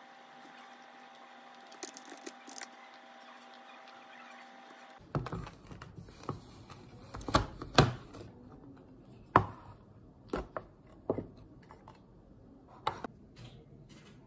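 A few computer-mouse clicks over a steady electrical hum. About five seconds in, the hum gives way to a series of sharp knocks and clacks as a stacked two-tier lunchbox is handled, opened and its containers set down on a desk.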